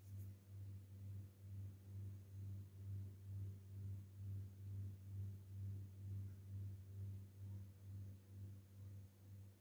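A faint, low steady hum that swells and fades about two or three times a second.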